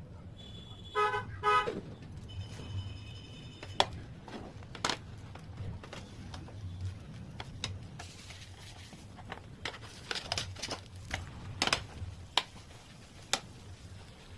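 Two short honks about a second in, then scattered sharp clinks and taps, like kitchen utensils knocking against a pan or bowl.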